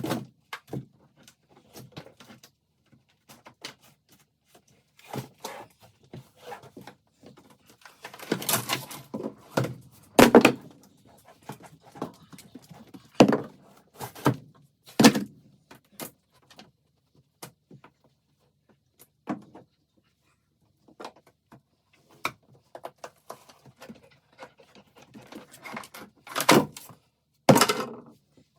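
Irregular knocks, thuds and scrapes from hands-on work moving tools and materials, with a few louder clunks about a third of the way in and again near the end.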